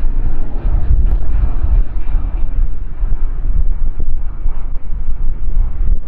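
Deep, uneven drone of a C-130H Hercules's four turboprop engines as it flies low overhead.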